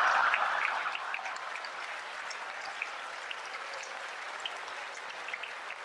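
Theatre audience laughing and applauding. The sound is loudest at the start and eases after about a second into a steady spread of clapping.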